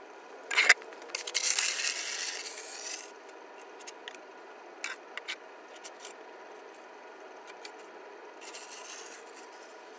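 Snow shovel scraping along an asphalt path: a sharp knock just under a second in, a loud scrape lasting about two seconds, then a few short clicks and a fainter scrape near the end.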